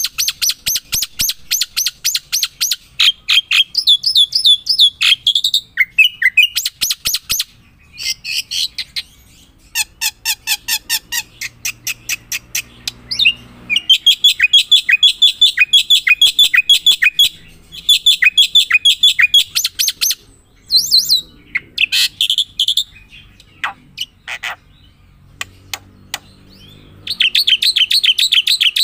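A bird singing close by: fast runs of high repeated chirps and trills in phrases of a second to a few seconds, with short pauses between.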